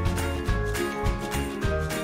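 Background music with a steady beat, about two beats a second, over a bass line and melody.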